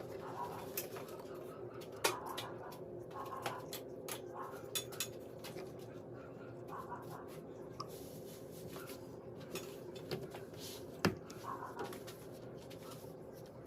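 Irregular light clicks and knocks of small hard objects being handled, over a steady hum; the loudest knock comes about eleven seconds in.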